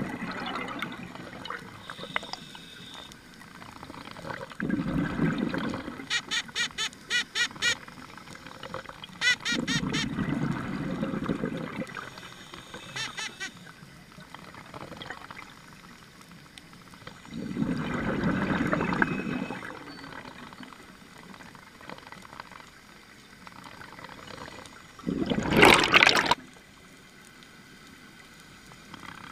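Scuba diver's breathing underwater: exhaled bubbles from the regulator gurgling and rattling in bursts every several seconds, with the loudest rush near the end.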